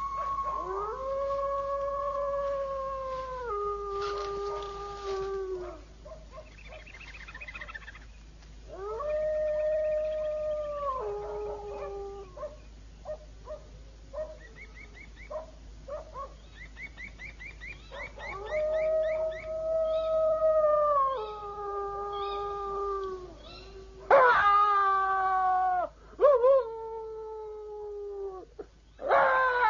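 Drawn-out howling, three times over: each howl holds one note and then drops abruptly to a lower one. Near the end come shorter, louder howls that rise sharply in pitch.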